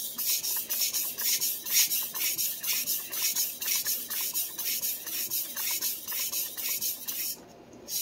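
Stainless steel santoku edge being stroked across a 1000-grit Suehiro Debado splash-and-go whetstone: rapid, even gritty scraping strokes, with a short pause near the end. This is the start of the intermediate stone, after the coarse stone.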